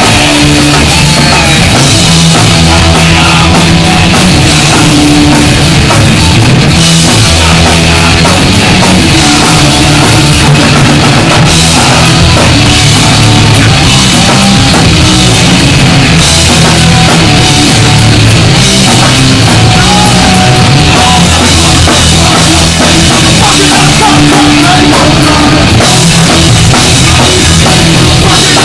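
Live punk band playing a fast, loud song: distorted electric guitars, bass guitar and a drum kit with steady cymbals.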